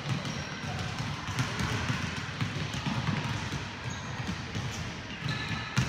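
Several basketballs dribbled at once on a hardwood gym floor: a dense, irregular patter of bounces with no steady rhythm.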